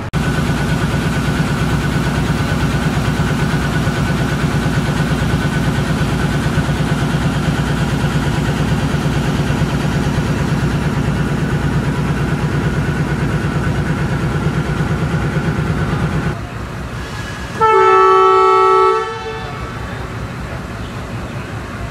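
Diesel locomotive engine running steadily at close range, then about seventeen seconds in the locomotive's air horn sounds one chord-like blast of about a second and a half, signalling the train's departure.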